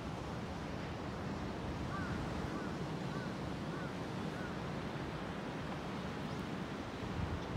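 Surf breaking on a sandy beach: a steady rumbling wash of waves, with wind on the microphone. About two seconds in, a faint run of five short chirps sounds over it.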